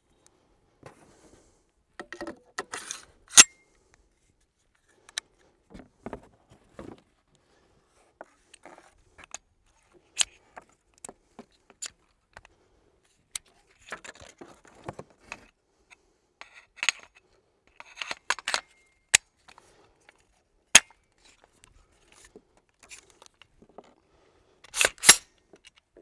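Sharp metallic clicks and clacks of an AR-10 rifle's upper and lower receivers being handled and fitted together, coming at irregular intervals, the loudest about three seconds in and a quick cluster near the end.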